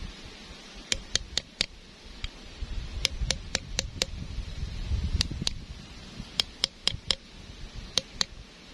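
Hammer tapping on a steel rod to drive a new lip oil seal into a cast tractor axle housing: sharp metallic taps in short runs of four or five, with pauses as the rod is moved around the seal's rim.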